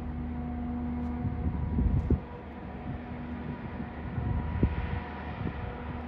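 A steady low machine hum with a few held tones, broken twice, around two and around four and a half seconds in, by low rumbling thumps.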